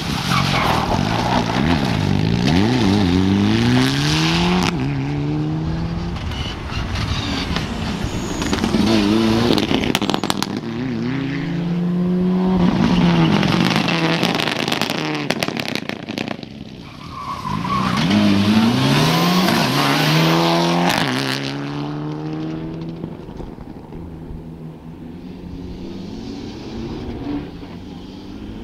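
Mitsubishi Lancer Evolution rally cars' turbocharged four-cylinder engines revving hard through the gears on several passes, the pitch climbing and dropping back at each shift, with clusters of sharp cracks twice. The last pass is quieter and further off.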